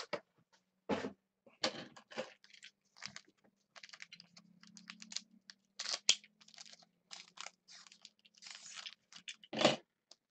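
Foil wrapper of a Panini Crown Royale trading-card pack being torn open and crinkled by hand, in irregular crackling rips and rustles.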